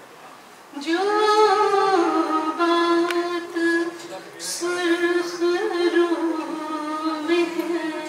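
A woman singing unaccompanied into a microphone, holding two long, slowly wavering notes with a short breath between them a little before the middle.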